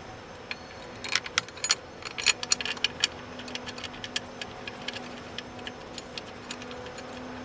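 Socket ratchet clicking in quick runs as a 10 mm bolt is turned, with sharp ticks thickest in the first few seconds and thinning out later.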